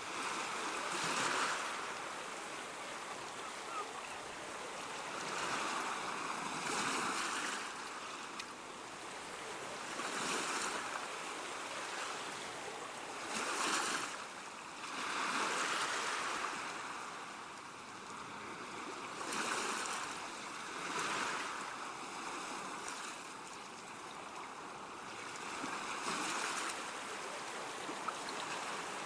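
Ocean surf: waves breaking and washing in, the rush swelling and easing every few seconds.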